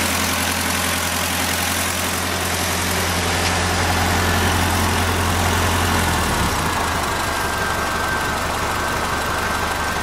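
Ford Model A's engine idling fast and steadily; about six seconds in its low, even note changes and turns rougher.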